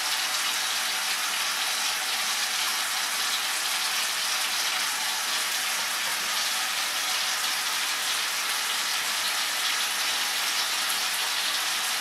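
Wet shaving brush swirled continuously on a puck of shaving soap, a steady wet hissing scrub as the brush loads with soap.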